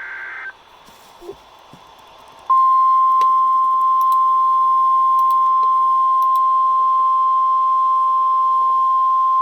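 The tail of a short raspy data burst ends about half a second in; after a two-second pause a loud, steady single tone just above 1 kHz starts and holds. This is the NOAA Weather Radio warning alarm tone that comes before a National Weather Service severe thunderstorm warning.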